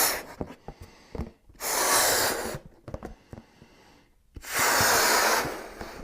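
A person blowing hard into a balloon to inflate it: two long, firm blows of rushing breath with a pause between them, after the end of an earlier blow right at the start.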